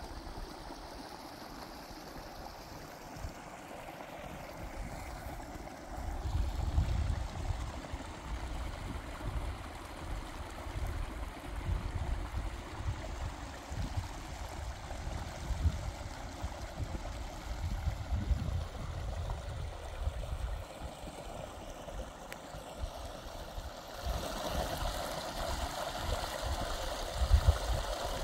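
Small meadow stream trickling and gurgling through the grass, growing louder about four seconds before the end. Irregular low rumbles come and go over it.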